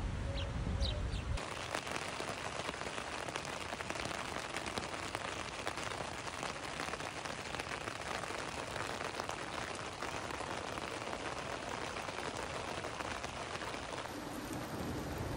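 Heavy rain pattering on a tent's fly, heard from inside the tent as a dense hiss of countless drops. It starts about a second and a half in, after a brief low wind rumble.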